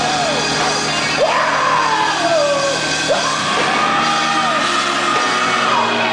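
A man singing and yelling into a handheld microphone through a loud PA, holding long high notes that swoop up and down over steady music backing.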